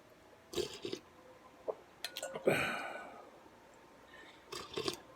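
Close-up mouth sounds of eating pho: a few short bouts of chewing and slurping, with a louder breathy sound about two and a half seconds in that fades away.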